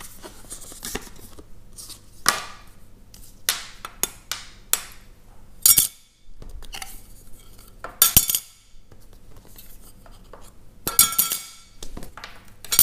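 Apple Card packaging and the titanium card handled on a glass tabletop: scattered taps, light clinks and scrapes, with a few louder knocks.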